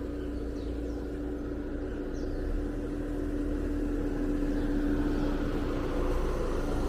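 Car engine running at low speed with a steady hum, growing a little louder, as the car is backed slowly into a parking space.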